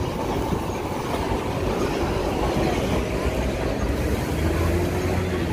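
Road traffic running steadily, with a heavier low engine rumble building about four seconds in.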